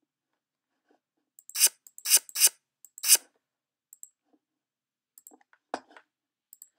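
A short flip sound effect, played by the app when its button is clicked, sounds four times in quick succession. It is followed by a few faint clicks.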